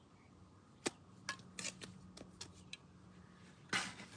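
Trowel and stone clicking and scraping against a plastic bucket of mortar: a string of sharp clicks, the loudest about a second in, then a longer scrape near the end.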